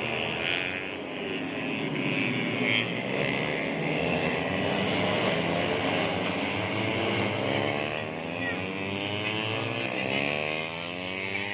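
Several 150cc four-stroke underbone racing motorcycles running hard, their overlapping engine notes rising and falling in pitch as they rev and pass, with one note dropping and climbing again near the end.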